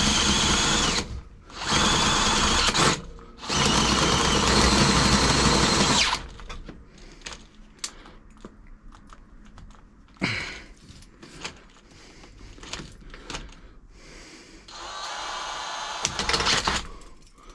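Electric drill boring a hole through a bicycle frame tube, run in three bursts with short stops between them. Then come scattered clicks and rattles of handling, and a quieter drill run near the end.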